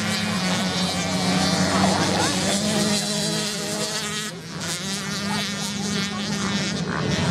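Dirt bike engines buzzing as the bikes ride along the sand, their high whine rising and falling with the throttle over a steady low drone.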